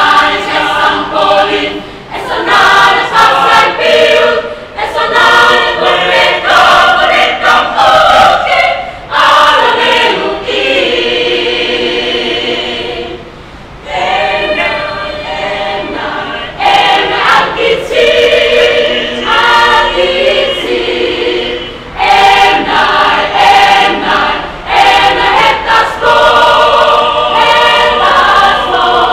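Mixed choir of men and women singing unaccompanied, holding long sung phrases, with a short pause between phrases about halfway through.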